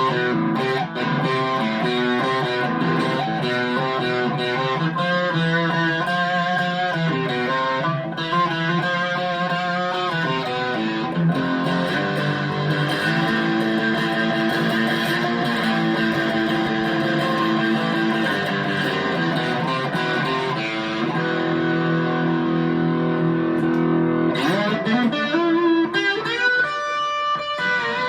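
Chapman ML3 electric guitar played through a Vox AV15 amp: quick single-note lines first, then longer held chords, with a note sliding up in pitch near the end.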